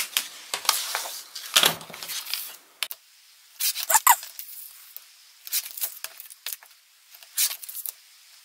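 Paper being handled on a paper trimmer: a sheet rustling and sliding into place, with scattered clicks, knocks and a brief squeak about four seconds in as the trimmer's arm is moved.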